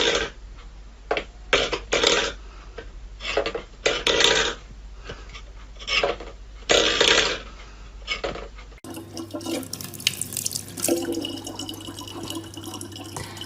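Water splashing in short, irregular bursts over a low electrical hum, then, after a sudden cut about nine seconds in, a steadier sound of running water from a tap.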